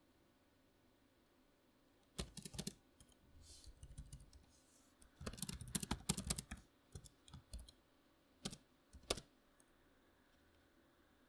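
Typing on a membrane computer keyboard: irregular bursts of key presses begin about two seconds in, with a dense flurry in the middle and a few single keystrokes, then stop a couple of seconds before the end.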